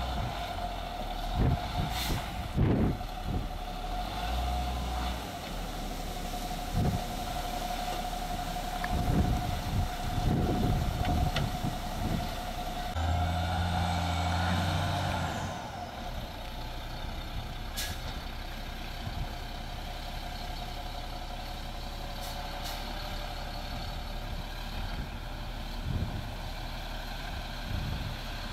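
Snowplow dump truck's engine running as the plow pushes snow, with a steady whine that stops about halfway and scattered knocks in the first half. A louder, deeper tone sounds for a couple of seconds around the middle.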